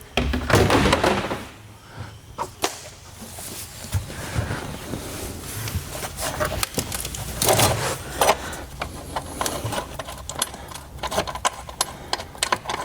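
Irregular clunks, scrapes and small clicks of hardware and tools being handled while a car battery is fitted and its mounting lined up. There is a louder knock near the start, two strong knocks past the middle, and a run of quick clicks near the end.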